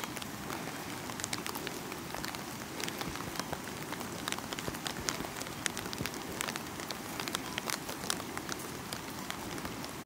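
Light rain pattering on leaves and ground: a steady hiss dotted with many irregular sharp drip ticks.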